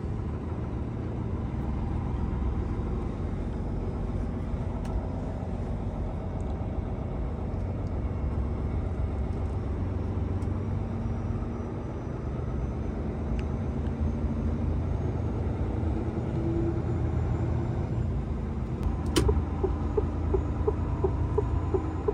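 Heavy truck's diesel engine heard from inside the cab, running low and steady as the truck pulls away and moves up through the gears. About three seconds before the end a click, then steady ticking about three times a second: the turn signal.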